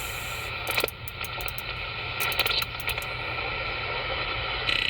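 CB radio receiver hissing with static and irregular crackles while tuned to 27.700 MHz with no clear station coming through. A buzzy tone breaks in near the end.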